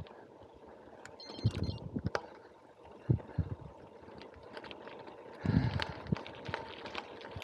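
Loaded touring bicycle rolling along a rough, patched forest road: steady tyre noise with clicks and rattles from the bike and its bags, and heavier thumps over bumps about a second and a half in, at about three seconds, and near five and a half seconds.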